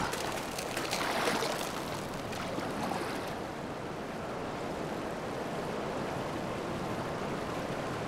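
Water sloshing and splashing as a Eurasian otter hauls itself out of the water onto the ice with a bullfrog in its mouth, settling after about three seconds into a steady hiss of lake water.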